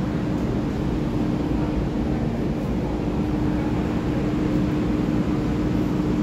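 TRA EMU3000 electric intercity train moving along the platform: a steady rumble of wheels and running gear with an unchanging hum.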